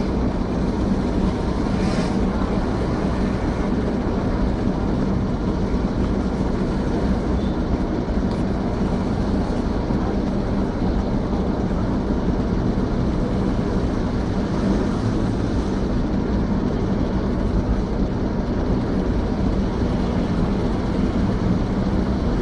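A steady low rumble and hiss of background noise with a constant low hum. Nothing stands out from it and there are no separate knocks or calls.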